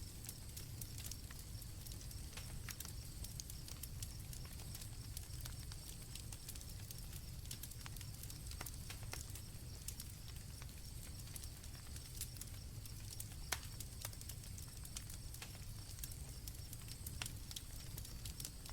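Campfire crackling, with scattered sharp pops over a low steady rumble; the sharpest pop comes about thirteen seconds in. Crickets chirr steadily in the background.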